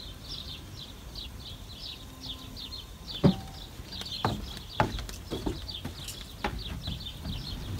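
Small birds chirping in farmland: a constant run of quick, high chirps several times a second, with a few louder, sharper calls or clicks from about three seconds in.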